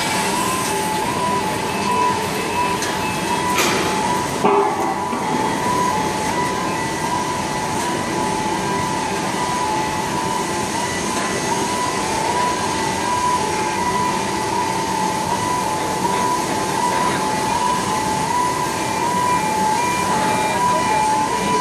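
Two-tone warning alarm of a goliath gantry crane sounding while the crane travels with its load, switching steadily back and forth between two close pitches over a constant machinery hum, with a knock about four seconds in.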